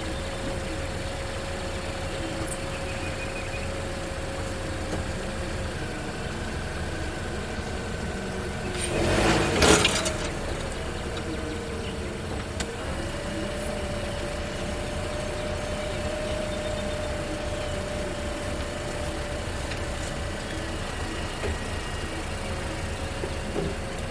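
2006 Toyota Corolla engine running slowly as the car is eased backward, straining a chain tied to a tree to pull out its bent front frame. About nine seconds in, a loud noisy surge lasting over a second stands out above the engine.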